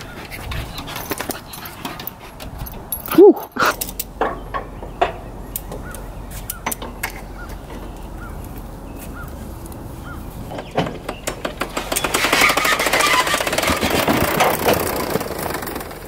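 A dog barks once, loud and short, about three seconds in. Near the end comes a few seconds of clattering and rattling.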